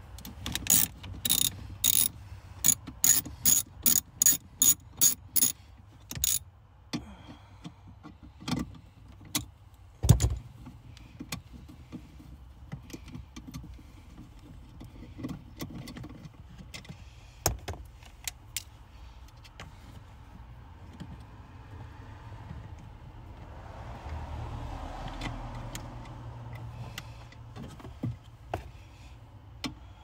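Socket ratchet clicking as a 10 mm bolt for a grounding wire is worked under a dashboard: a quick run of ratchet strokes, about three a second, for the first five seconds or so, then scattered clicks and a single knock about ten seconds in.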